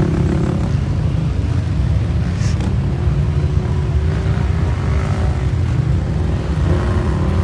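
Vehicle engines running as a steady low rumble.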